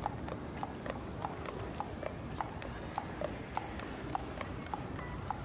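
A carriage horse's shod hooves clip-clopping on a paved road at a steady walk, about three to four hoofbeats a second.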